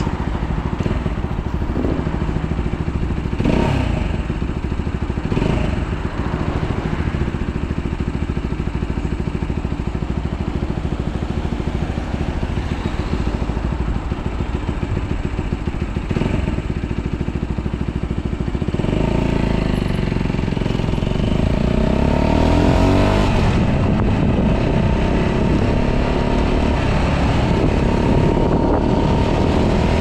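125cc motorcycle engine idling steadily while stopped, then, about two-thirds of the way through, pulling away and accelerating with the engine note rising and growing louder.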